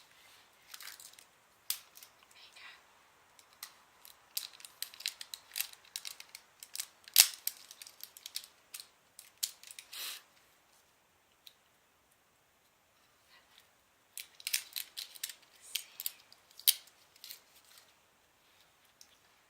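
Foil wrapper of a chocolate surprise egg crinkling and tearing as it is unwrapped by hand, in two long runs of sharp crackles with a quiet gap between them and one loud crack about seven seconds in.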